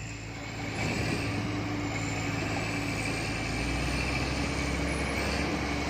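Heavy diesel machinery running steadily: a low, even engine drone with a steady higher tone over it.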